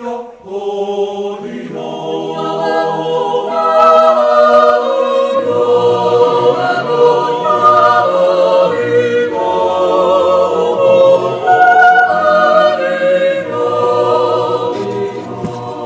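Swiss yodel choir singing held, slowly changing chords, voices alone without instruments.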